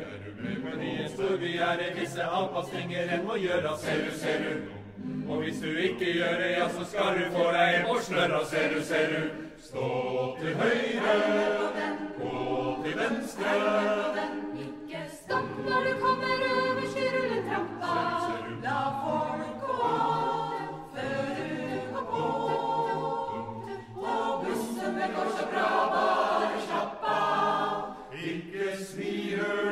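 A cappella choir singing a Norwegian revue-style song, mostly quick, word-packed lines with a few longer held chords near the middle.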